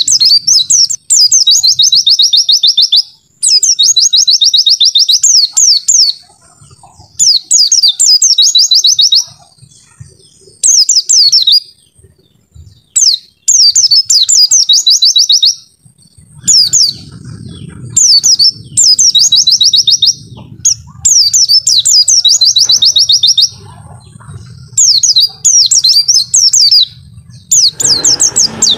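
White-eye (pleci) song: fast, high-pitched trilling phrases of about two seconds each, repeated over and over with short pauses between them. From about halfway a low rumble runs underneath.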